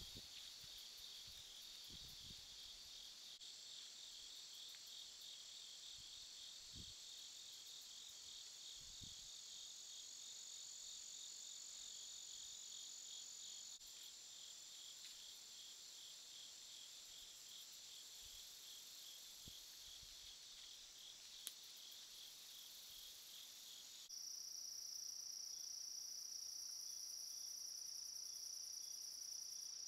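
Night insect chorus of crickets, a steady high-pitched trilling with a faster pulsing layer beneath it. About 24 s in the chorus switches to a louder, steadier single high buzz, and there is one brief sharp click shortly before that.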